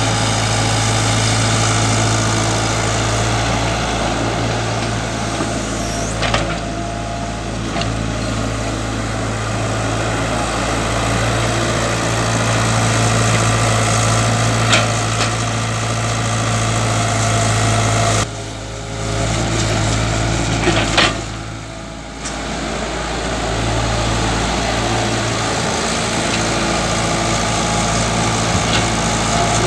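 Tata Hitachi EX70 excavator's diesel engine running steadily under work, with a low hum and a few short sharp knocks. The engine sound drops briefly twice, at about 18 and 22 seconds in.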